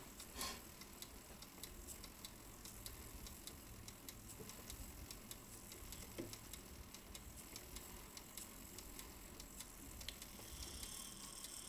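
German mantle clock movement ticking faintly and steadily as its escape wheel and pallets run, the pallets being the part that the repairer suspects sit too deep in the escape wheel and make the clock stop.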